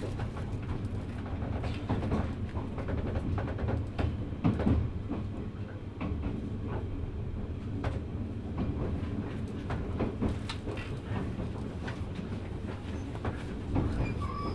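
Running sound of the 183-series EMU motor car MoHa 182-22, heard from inside the car: a steady low rumble with the wheels knocking over rail joints at irregular intervals.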